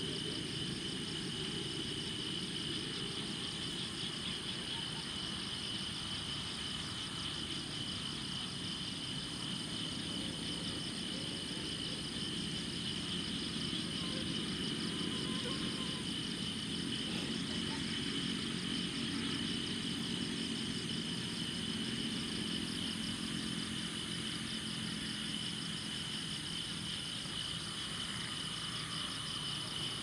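Nighttime insect chorus: a continuous high trill with a fast pulsing shimmer above it, over a low steady rumble.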